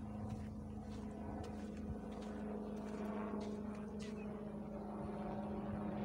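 An engine running steadily with a constant hum that holds one pitch throughout.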